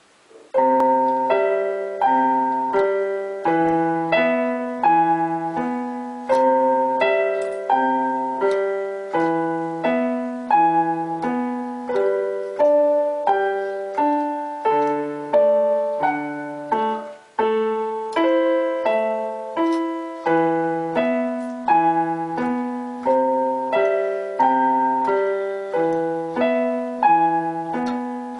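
Casio portable electronic keyboard played with both hands in a piano voice: an evenly paced melody over a repeating bass pattern, with a brief break about seventeen seconds in.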